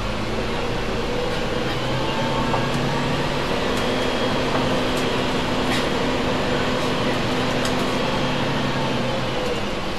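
Double-decker diesel buses idling at their stands: a steady low engine hum mixed with air-conditioning noise, with a few faint clicks.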